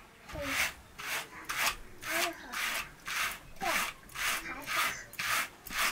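Wool being carded with a pair of wire-toothed hand carders: rhythmic brushing strokes as one card is drawn across the other through the fibres, about two strokes a second.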